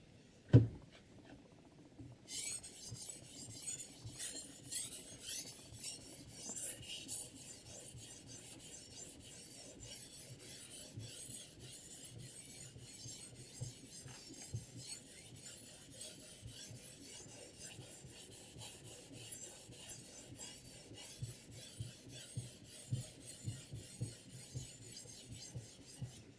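A sharpening stone on a guided-rod knife sharpener scraping repeatedly along the steel edge of a chef knife, a steady run of back-and-forth rasping strokes. A single sharp knock comes about half a second in, before the strokes begin.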